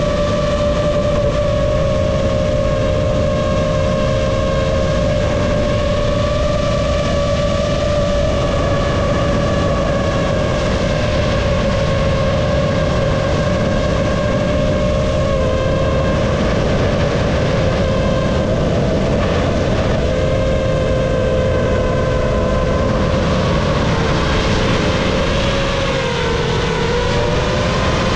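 Brushless motors and 5-inch three-blade propellers of a GEPRC Mark5 FPV quadcopter whining steadily in flight, over a constant rush of air. The pitch drifts a little with throttle and dips briefly near the end.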